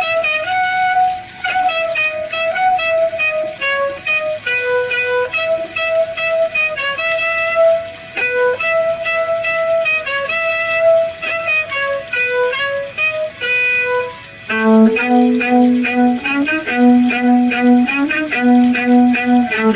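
Violin playing a slow melody of held and stepping notes; about fourteen and a half seconds in, a lower part of short repeated notes comes in under it with a steadier pulse.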